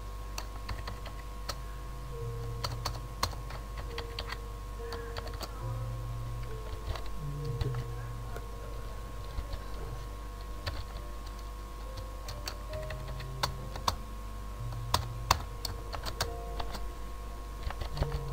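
Typing on a computer keyboard: irregular keystroke clicks with short pauses, over a steady low electrical hum.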